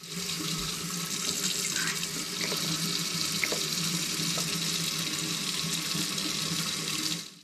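Kitchen faucet running steadily into a stainless steel sink, with a few faint clicks midway.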